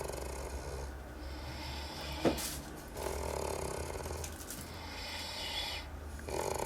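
A man snoring: three rattling snores about three seconds apart, each followed by a hissing breath. A sharp click comes about two seconds in.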